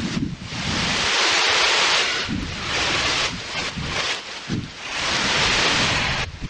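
Heavy rain pouring down, a dense steady hiss picked up by an outdoor camera's microphone. It is cut into short stretches that stop and restart abruptly every second or two.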